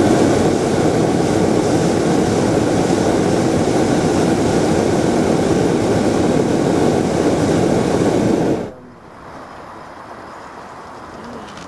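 Hot-air balloon's propane burner firing in one long blast that cuts off suddenly about nine seconds in.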